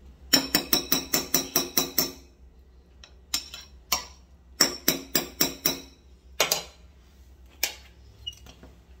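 Metal spoon striking a glass bowl of guacamole in two quick runs of about eight taps each, each tap ringing briefly, with a few single knocks between and after.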